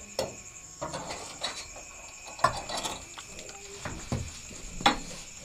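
Metal snake tongs clacking and scraping against brick and roof sheeting as they grip a cobra, with sharp knocks about two and a half seconds in and near the end. A steady high insect chirring runs underneath.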